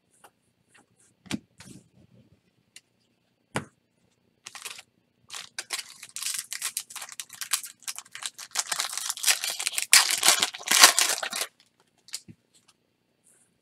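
A few sharp taps of trading cards being handled, then a foil Topps Chrome pack wrapper crinkling and tearing open, a dense crackle that grows loudest near the end before stopping suddenly.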